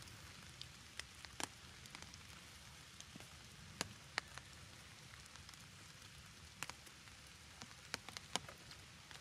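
Scattered drops tapping on an umbrella: irregular sharp ticks, about a dozen spread unevenly, over faint low background noise.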